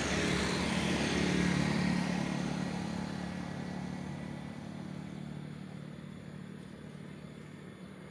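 A motor vehicle's engine running as it passes along the road, loudest about a second in and then fading steadily as it moves away.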